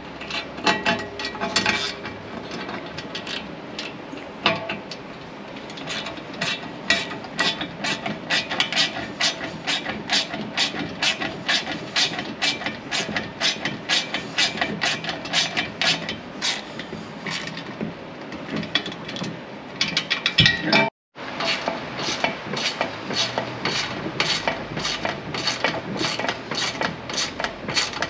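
Ratchet wrench with a 13 mm socket clicking rapidly as it runs bolts tight on steel bed-rack brackets, several clicks a second, with a brief silent gap about two-thirds of the way through.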